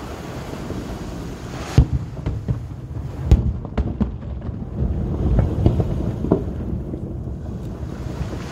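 Firework shells bursting in the sky: a string of sharp bangs, the loudest about two and three seconds in, over a continuous low rumble.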